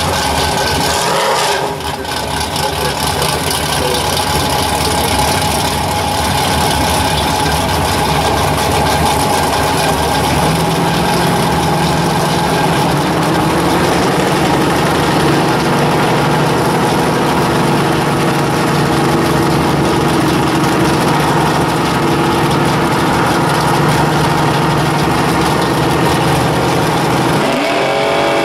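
Fox-body Ford Mustang's V8 idling steadily in the burnout box. The engine speed steps up and holds higher about halfway through, then is revved sharply up near the end as the driver starts a burnout.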